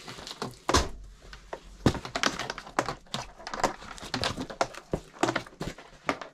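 Footsteps on a concrete floor mixed with irregular knocks and clunks, with a heavier thud about a second in.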